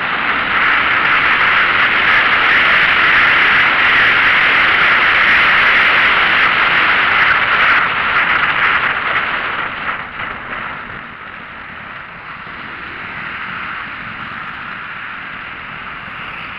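Steady rushing wind and road noise from a moving vehicle, dropping in level about ten seconds in.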